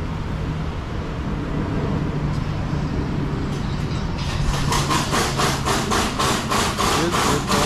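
A vehicle engine running steadily; about four seconds in, a rapid, even rattling of sharp strikes, roughly five a second, joins it and keeps going.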